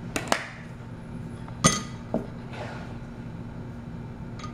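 Plastic toy train track pieces clicking and knocking against the glass platform of a kitchen scale as they are taken off and set down: two quick clicks, then a louder knock about a second and a half in and a softer one just after.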